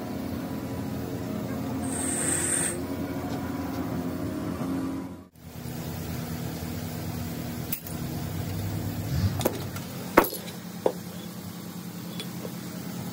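Steady low machine hum, with a few sharp metal clinks around ten seconds in as steel gearbox parts are handled.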